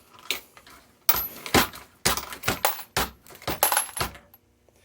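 Empty .223 brass cartridge cases clinking and clattering against each other in a plastic Lee case collator: a quick, irregular run of sharp metallic clicks, some with a brief ring, that stops a little after four seconds in.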